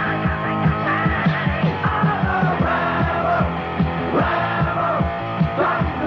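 Punk rock song with singing over a steady fast drum beat, bass and guitar, played by a sound system and heard off an old cassette recording.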